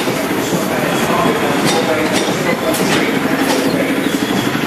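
London Underground sub-surface train running along the platform and slowing, its wheels clicking over rail joints and pointwork under a steady rumble. A low squeal comes in during the second half.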